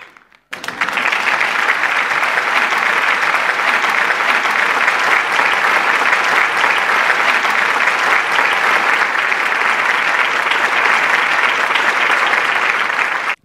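Audience applauding steadily, a dense clapping that starts suddenly about half a second in and cuts off abruptly near the end.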